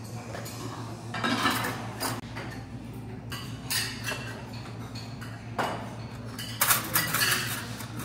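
Dishes and stainless-steel tableware clinking and clattering on a restaurant table in several separate clatters, over a steady low hum.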